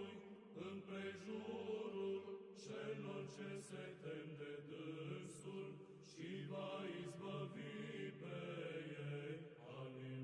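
Orthodox church chant: voices singing a slow, sustained melody, with a low held drone note beneath that drops out about two and a half seconds in.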